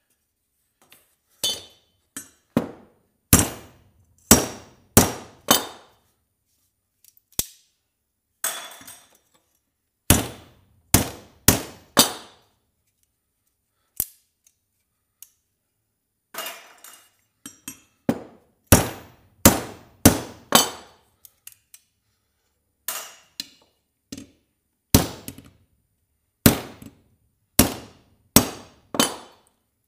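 Hammer blows on brass scrap fittings, each a sharp metal strike that rings briefly. They come in runs of three to six, about a second apart, with short pauses between runs.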